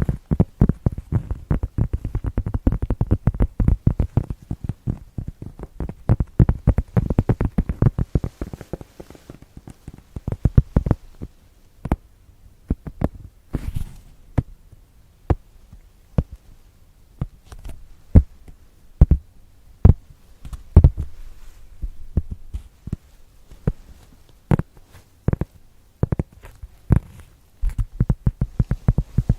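Close-miked ASMR tapping: dull taps in fast flurries at first, thinning to slower, scattered single taps through the middle, then quickening again near the end.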